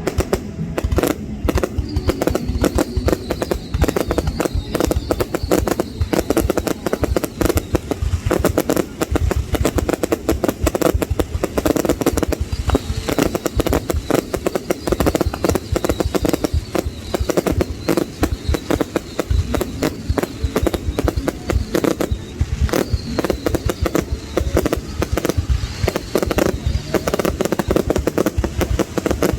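Fireworks display going off in rapid, continuous bangs and crackles, many a second without pause, with people's voices underneath.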